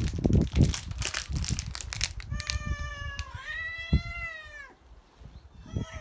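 Domestic cats yowling at each other in a territorial standoff: after about two seconds of rustling noise, one drawn-out meow, then a longer yowl that rises and falls, and another yowl starting near the end.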